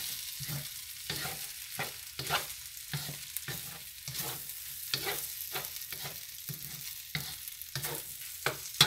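Wooden spatula scraping and turning fried rice around a hot wok in repeated strokes, about one and a half to two a second, over a steady sizzle of the rice frying. A sharper knock near the end.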